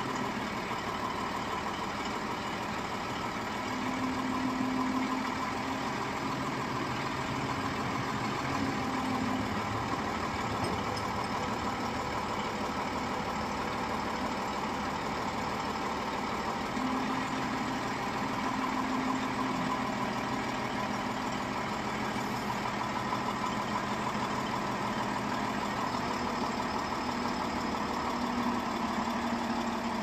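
Heavy diesel machinery engine running steadily during a crane lift, its hum swelling for a few seconds at a time, about three times.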